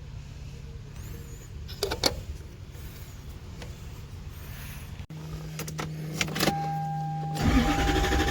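A 1992 Lexus LS400 being started. There are a couple of clicks about two seconds in, and a steady high tone comes on about six and a half seconds in. Near the end its V8 cranks and starts, and the sound grows much louder.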